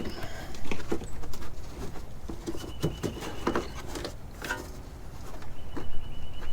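Rustling and scattered knocks of a car's interior carpet being pushed and fitted back into place by hand, with a faint high tone sounding briefly three times.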